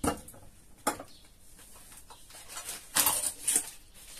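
Glass jar knocking down onto a kitchen counter, with a second knock a little under a second in, then plastic food packaging crinkling about three seconds in.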